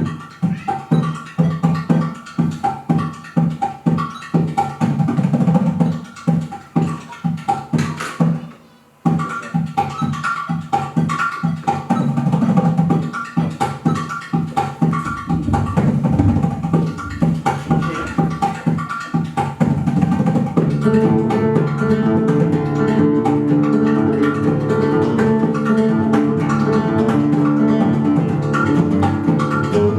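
Music of plucked strings, guitar-like, with light percussion. It breaks off for a moment about nine seconds in, and from about two-thirds of the way through it grows fuller, with held notes.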